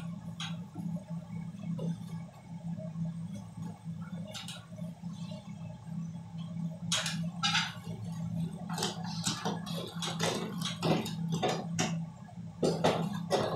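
Clicks, knocks and scrapes of hands and tools working inside an opened ceiling-mounted air-conditioner unit, sparse at first and coming thick and fast from about halfway in, over a steady low hum.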